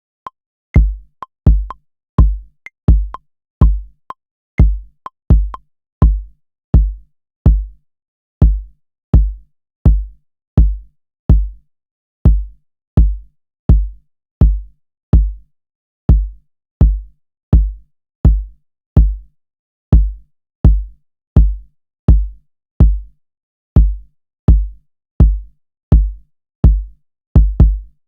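An electronic kick drum on Native Instruments Maschine, hit over and over at about one and a half times a second, with a few short pauses. Each hit is a click that drops quickly into a deep low thump.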